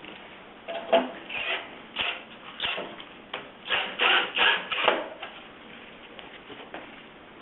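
Irregular series of short scraping and rubbing noises, about a dozen in four seconds, from hand work on a kiln lid's hinge hardware; they stop about five seconds in.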